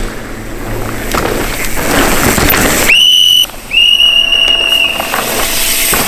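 A whistle blown in two steady high blasts, a short one about three seconds in and a longer one just after, following a couple of seconds of loud rushing noise.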